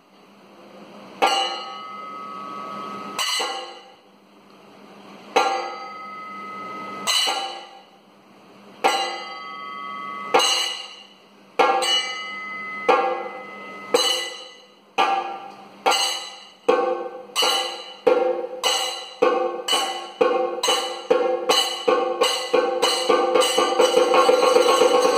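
Kathakali percussion: ringing metallic strikes, at first about two seconds apart, quickening steadily until they run together into a fast roll near the end.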